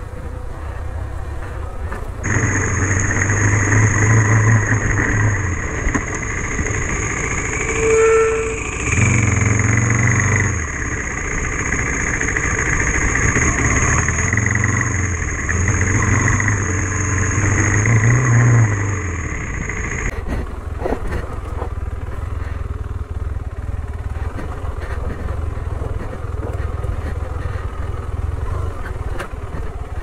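Adventure motorcycle engine running on a dirt trail, its rumble swelling and easing as the throttle opens and closes. From about two seconds in until about twenty seconds, a steady high whine sits over the engine.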